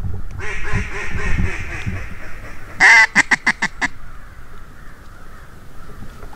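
Duck call blown by a hunter: a softer, raspy run of calling, then about three seconds in a loud, quick series of about seven quacks.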